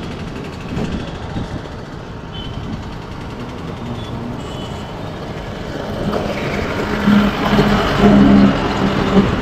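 Busy street traffic below: a steady mix of motorbike and auto-rickshaw engines with a few faint horn beeps. It grows louder in the second half, with a heavier engine drone near the end.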